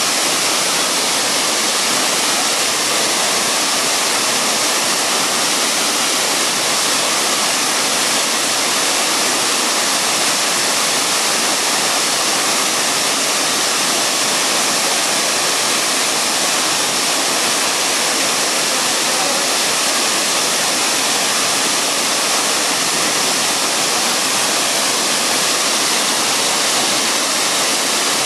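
Waterfall pouring over rock into a pool: a loud, steady rush of falling water that does not change.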